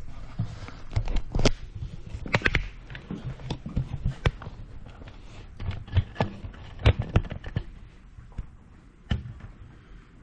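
Irregular sharp clicks and knocks of hand tools and metal parts as a highway peg clamp is positioned and bolted onto a motorcycle crash bar.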